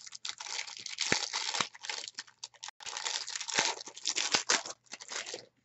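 Plastic wrapper of a trading-card pack crinkling and tearing as it is worked open by hand, in a run of crackly bursts that stops near the end.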